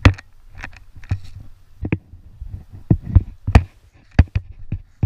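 Running footfalls on a woodland floor: about ten irregular heavy thumps with sharp knocks as the worn camera jolts with each stride.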